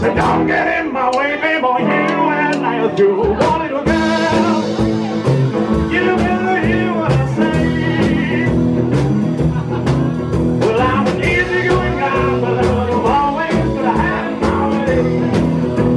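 Live rock and roll band playing: electric guitar, strummed acoustic guitar and drums keeping a steady beat, with a male singer. A cymbal wash comes in about four seconds in.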